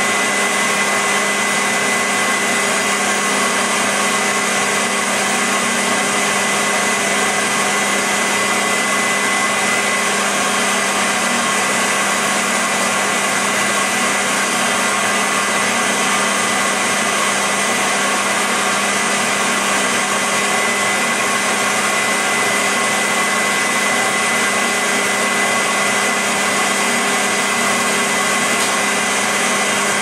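Vacuum cleaner running steadily: a constant rush of air with a steady motor whine held at one pitch through it, no changes in speed or level.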